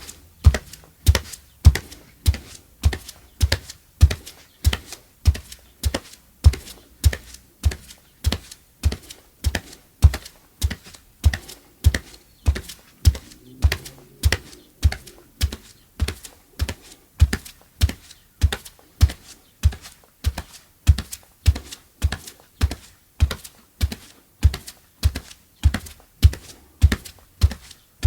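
Bare feet walking at a steady pace, about two footfalls a second, each step a short impact with a strong low thud.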